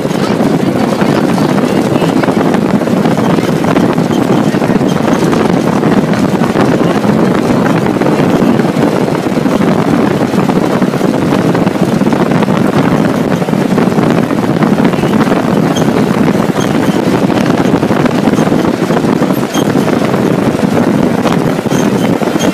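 Chenowth dune buggy driving over desert sand: its engine and the rush of wind over the microphone blend into one loud, steady noise that holds without a break.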